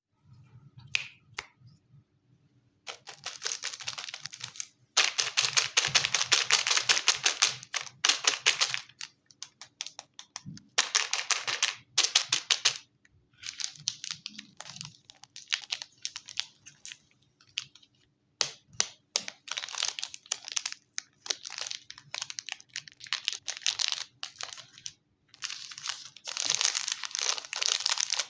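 A chocolate wrapper crinkling and tearing as it is handled and unwrapped, in several stretches with short pauses between them.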